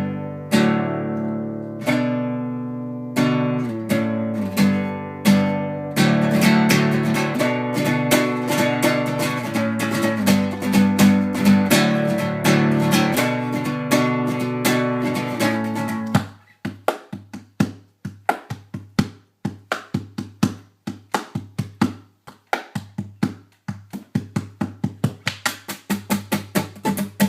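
Acoustic guitar music. Slow chords ring out at first, then fast continuous strumming follows, and from about two-thirds of the way through come short damped strokes in a quick rhythm.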